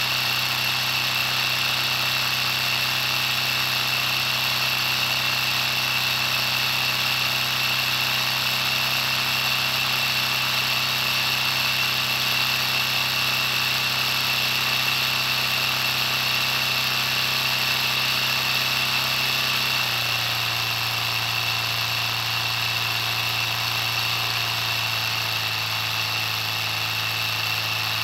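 Steady idling drone of a Detroit Diesel 4-71 engine sound, with a deep low hum. About twenty seconds in the pitch steps down and settles at a lower, slower idle.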